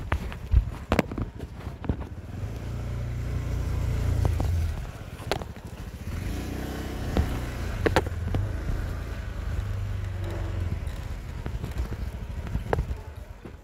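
Honda motor scooter running at low speed, with a steady low rumble and a few sharp knocks.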